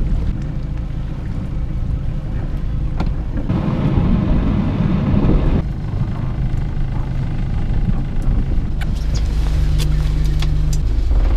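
A sailboat's inboard engine idles with a steady low rumble. A rush of noise lasts about two seconds near the middle, a steady hum joins for a couple of seconds near the end, and a few light clicks and knocks sound.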